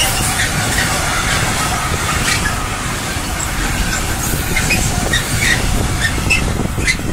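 Train rolling past on the track, with wheels clattering and squealing on the rails. The rail noise drops away abruptly at the very end as the train clears.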